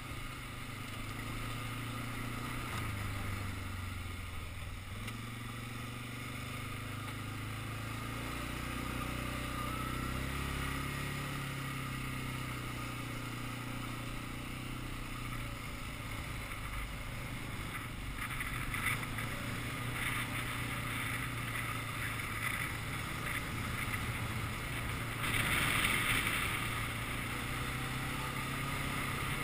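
Quad (ATV) engine running steadily as it is ridden over a gravel track, its note shifting with the throttle, with tyre and wind noise. A louder rushing hiss comes in over the last few seconds.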